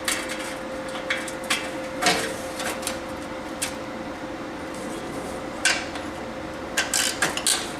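Scattered metallic clinks and taps of hand tools and bolts against metal engine parts, over a faint steady hum; near the end a quick run of clicks.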